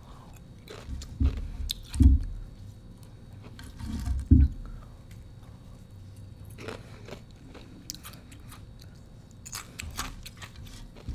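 Thin slab ice being bitten and chewed close to the microphone. There are a few loud, sharp crunches in the first half, then quieter crackling as the pieces are chewed down.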